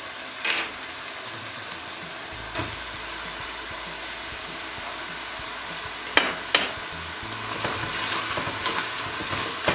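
Beef cubes and diced onion frying with a steady sizzle in butter and olive oil in a stainless steel pot, the meat's juices cooked off. A few sharp knocks come near the start and around six seconds in, and a wooden spoon stirs through the pan toward the end.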